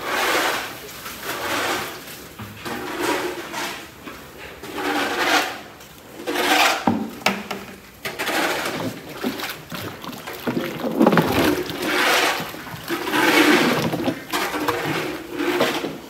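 Thick water-soaked cattle feed sloshing and swishing in a large cement tank as it is stirred with a wooden pole, in repeated strokes about every second or so.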